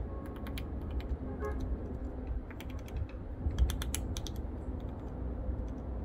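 Japanese pygmy woodpecker pecking at a branch in quick bursts of light, rapid taps, the busiest run a little past the middle. A steady low rumble runs underneath.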